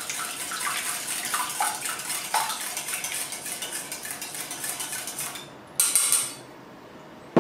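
Wire whisk beating eggs and milk in a stainless steel bowl: fast, even clinking of the wires against the metal, stopping about five seconds in, followed by one brief louder clink about six seconds in.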